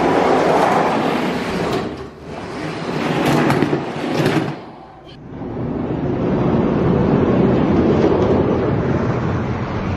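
Die-cast Spin Master monster trucks rolling down orange plastic track: a rolling rumble with a few sharp clacks in the first half. It drops away about five seconds in, then builds again into a steady rumble.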